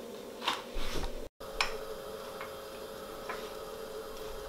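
Quiet kitchen handling sounds: a couple of light knocks early, then a few faint scattered ticks over a steady low hum.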